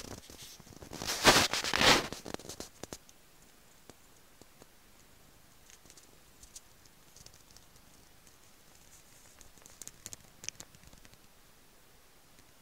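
Rustling and scuffing of fabric and handling for about a second, a second or so in, then quiet with a few faint clicks around ten seconds in.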